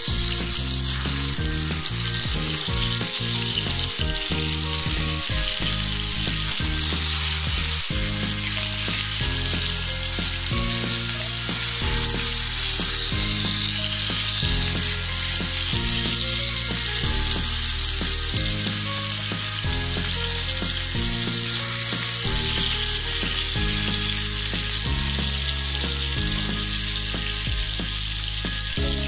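Rohu fish steaks sizzling steadily as they shallow-fry in hot oil in a pan, turned now and then with a wooden spatula. Low background music plays beneath the sizzle.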